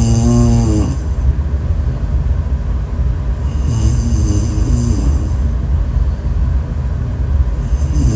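A person snoring in a slow rhythm: pitched snores, each with a thin whistle-like hiss, come about every four seconds, at the start, about four seconds in, and again at the end, over a steady low rumble.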